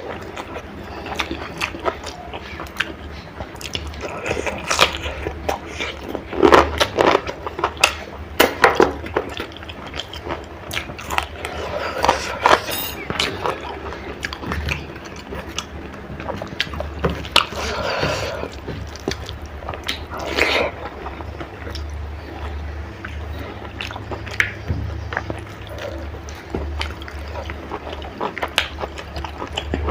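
Close-miked eating sounds: chewing and biting of chicken curry and rice, with many short wet smacks and clicks over a steady low hum.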